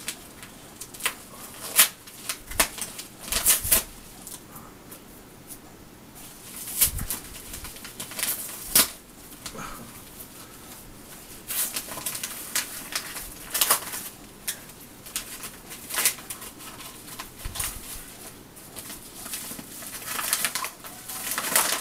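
A mystery patch envelope being opened and its contents handled: irregular crinkling and rustling of packaging, with scattered louder crackles and tears.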